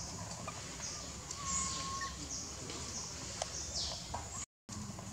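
Faint high chirping animal calls and one short whistled tone over a steady low rumble. The sound cuts out completely for a moment about four and a half seconds in.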